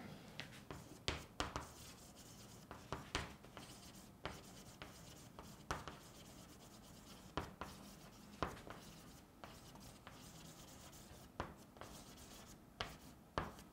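Chalk writing on a chalkboard: faint, short scratches and taps of the chalk strokes, coming irregularly one or two at a time.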